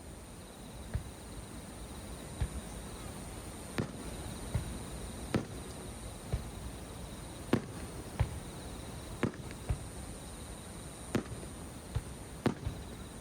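Aerial fireworks shells bursting at a distance: about fourteen sharp bangs at irregular intervals, some in quick pairs.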